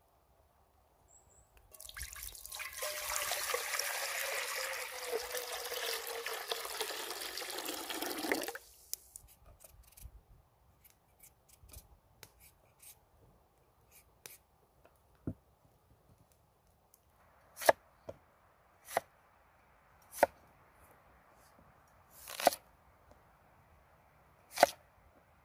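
Liquid poured into a hanging cast-iron pot for about six seconds, stopping abruptly. Then a knife makes faint scrapes peeling potatoes, and in the second half it chops potatoes on a wooden board with five sharp knocks.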